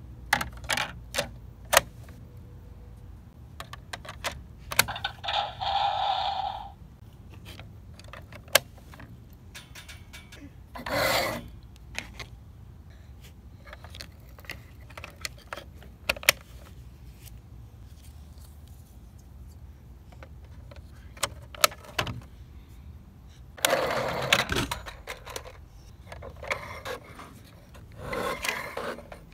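A large plastic Lightning McQueen toy car being handled, with clicks, knocks and plastic scraping as its body shell is pulled off. A short pitched sound comes about five seconds in.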